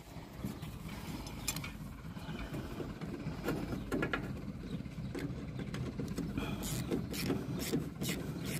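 Metal parts of a John Deere 346 baler's knotter clicking and clanking as they are worked into place by hand, over a steady low hum. The clicks are scattered at first and come about two or three a second near the end.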